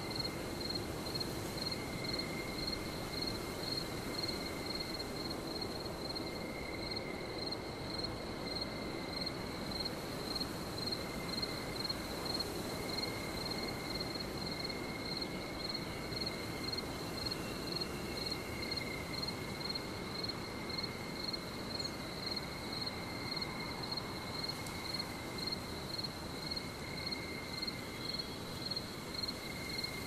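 Night-time forest ambience: a cricket chirping in an even rhythm, about two chirps a second, over a lower insect drone that swells and fades and a constant hiss.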